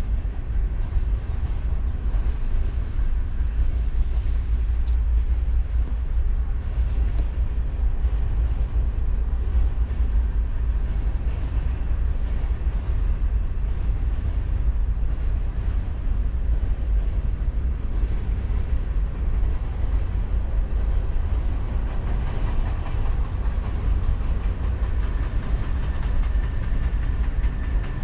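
Train rolling by on the rails with a steady low rumble; a faint thin high tone comes in near the end.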